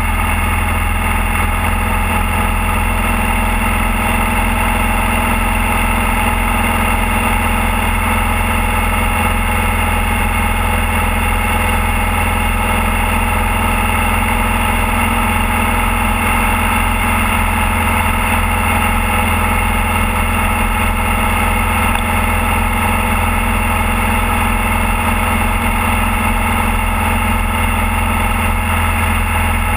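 Motorcycle engine running at a steady cruise, with the wind noise of riding at speed. The engine note holds even the whole time, with no gear changes or revving.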